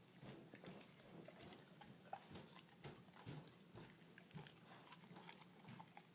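Faint, irregular wet clicks and smacks of a dog chewing and licking on a toothbrush.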